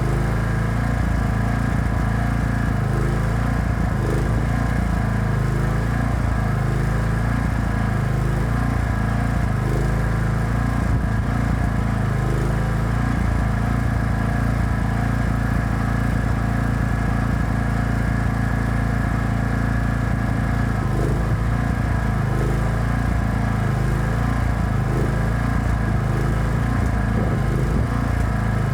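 Engine-driven welding generator running steadily, its drone wavering up and down about once a second through much of it.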